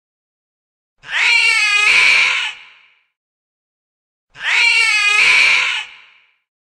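A cat screaming twice: two matching yowls of about two seconds each, a few seconds apart. Each starts as a wavering, pitched cry and breaks into a harsh, raspy screech before fading.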